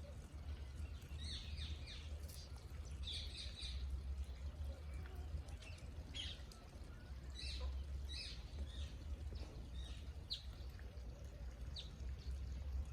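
Birds chirping: short, high chirps scattered irregularly over a steady low rumble.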